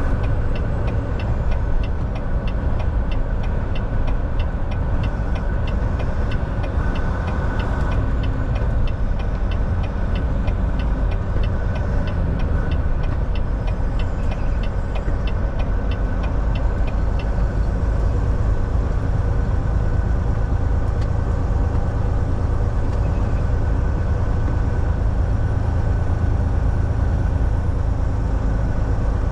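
Semi truck on the move: a steady low engine and road rumble with a constant thin whine above it. A fast, regular ticking of about two or three a second runs alongside and stops a little past halfway.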